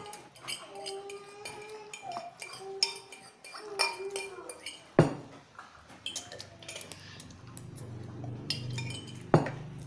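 Cutlery clinking against ceramic bowls and plates and glasses being handled at a meal table, in scattered clicks and knocks. The two loudest sharp knocks come about five seconds in and near the end.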